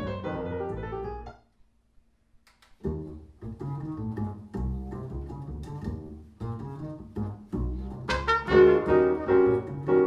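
Jazz from CD played through Q Acoustics 3020 bookshelf speakers in a room: piano and bass stop about a second and a half in, then after a short gap another track starts with plucked double bass and piano. A trumpet comes in near the end.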